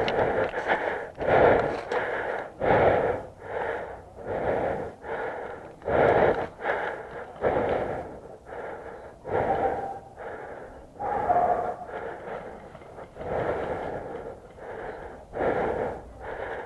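A person panting hard close to the microphone, quick out-and-in breaths at about one and a half a second, with a faint whistling tone in a few breaths near the middle: breathless from exertion.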